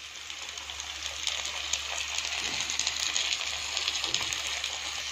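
Freshly added chopped tomatoes and onions sizzling and crackling in hot groundnut oil in a pan, with many fine pops over a steady hiss that builds up over the first second or two.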